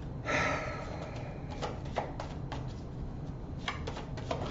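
Tarot cards being handled and shuffled: a short swish of cards sliding about a quarter second in, then scattered light clicks and taps of cards.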